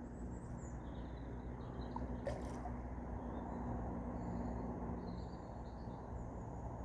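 Outdoor lakeside ambience: a steady low rumble of wind-like noise, with faint short bird chirps scattered through it and a single brief click a little over two seconds in.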